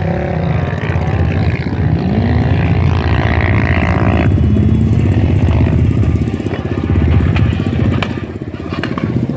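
Off-road engines of dune-bashing 4x4s and quad bikes running and revving together, their pitch rising and falling, over a heavy low rumble.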